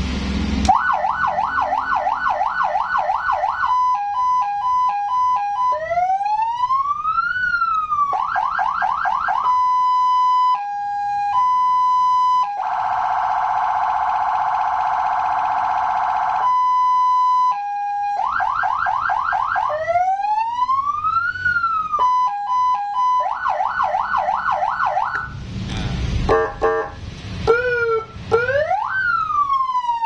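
Electronic siren from a CJB200W siren amplifier and its speaker, stepping through its tones as the selector is switched: quick repeated yelps, a high-low two-tone, a slow rising-and-falling wail and a harsh buzzing horn tone, cycling round again. Near the end the sound breaks up with a few sharp clicks, then a wail starts and falls away.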